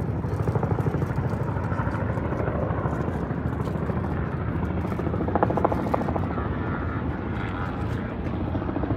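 A helicopter flying over, its rotor beating in a steady fast pulse over the general noise of the city.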